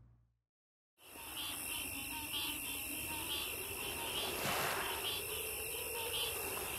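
Outdoor marsh ambience after about a second of silence: a steady high-pitched insect drone with short chirps repeating above it, and a brief rushing swell a few seconds in.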